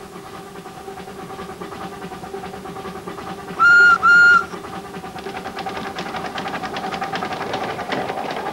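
Miniature steam locomotive sounding two short whistle blasts, then chuffing with quick, even exhaust beats that grow louder as it comes past.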